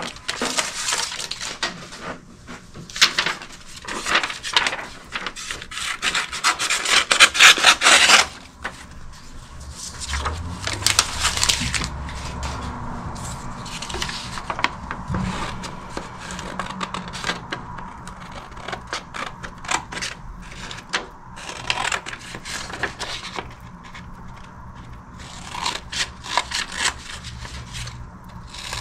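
Rubbing and scraping on a hard surface in quick, irregular strokes, loudest for the first several seconds, then quieter and sparser.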